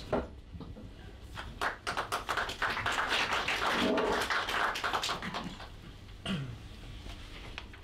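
Handling noise from a table microphone being passed from hand to hand: clicks and knocks, then a couple of seconds of close rustling and scraping against the mic.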